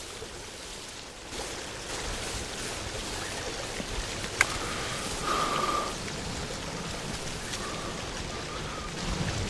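Steady outdoor background hiss, with a single sharp click about four and a half seconds in as a cigarette lighter is struck.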